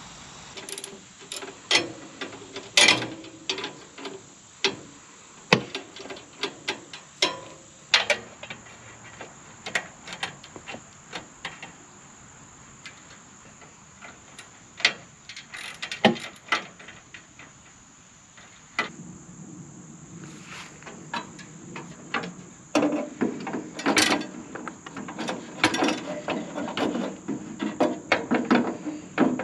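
Irregular metallic clicks, taps and knocks from hand tools and bracket parts as a small solar panel mount is assembled and fitted. About two-thirds of the way in they thicken into a denser run of rattling clicks. Insects drone steadily behind.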